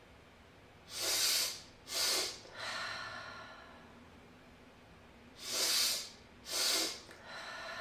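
Two rounds of the physiological sigh (cyclic sighing): two quick, sharp inhales through the nose, one right after the other, then a longer, quieter exhale. The pattern comes twice.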